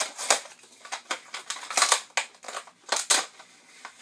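Plastic Snack Pack pudding cups crackling and snapping as one is pried off the multipack: a run of sharp, irregular cracks, the loudest about two and three seconds in.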